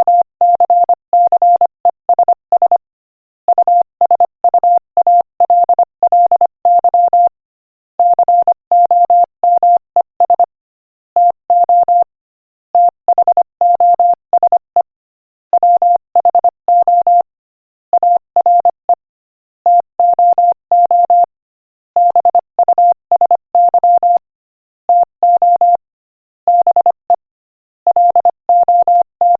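Morse code sent at 25 words per minute: a single steady beep keyed on and off in quick dots and dashes, grouped into words with short pauses between them.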